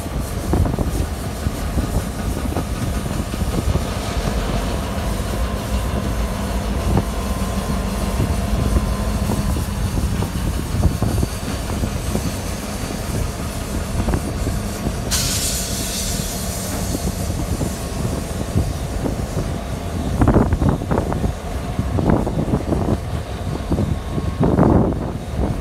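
EMD diesel road-switcher locomotives (GP9RM and GP38-2s) running as they roll slowly through the yard, with a steady engine drone. A brief hiss comes about fifteen seconds in, and near the end the wheels clack over rail joints.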